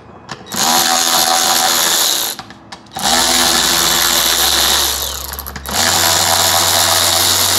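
Cordless electric ratchet running in three long bursts, spinning bolts out of a BMW M54 VANOS unit, with short pauses between the bursts.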